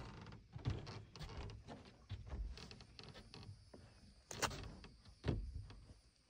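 A white lioness biting into a whole watermelon, the rind cracking and crunching in a series of sharp snaps. The loudest come about three-quarters of a second, four and a half and five and a half seconds in.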